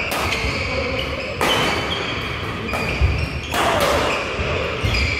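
Badminton doubles rally: rackets striking the shuttlecock about once a second, each sharp crack ringing on in the large hall, with shoes squeaking on the court floor between strokes.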